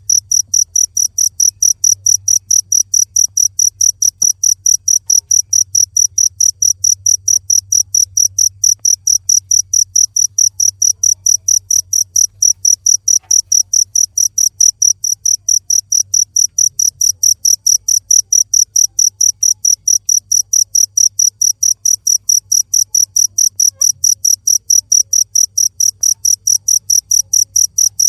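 Cricket chirping steadily, a high, evenly pulsed trill at about four chirps a second.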